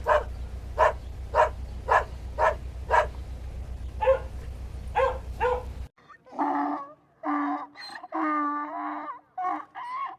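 Chickens calling: short clucks repeated about twice a second over a low hum, then, after a cut about six seconds in, longer drawn-out calls, one lasting about a second.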